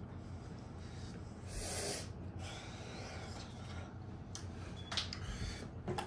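Quiet room with a steady low hum, broken by one loud breath through the nose or mouth about a second and a half in, from someone whose mouth and nose are burning from a Carolina Reaper pepper. Two short clicks follow near the end.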